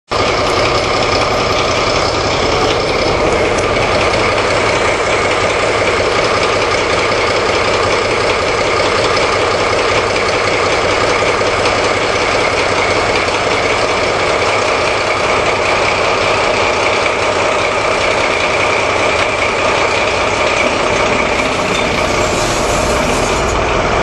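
Diesel engines of a V180 diesel locomotive idling at standstill: a steady, unchanging running with a constant high whine over it.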